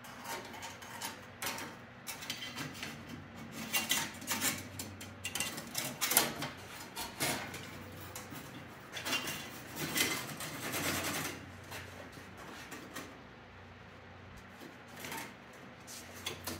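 Steel band saw blade clinking and scraping against the wheels and blade guides of a metal-cutting band saw as it is fitted by hand: a run of irregular metallic clanks, busiest in the middle and thinning out near the end.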